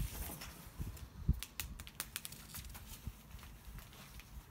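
Plastic packing strapping being handled and wrapped around the body: a couple of soft thumps about a second in, then a run of quick, sharp clicks and crackles.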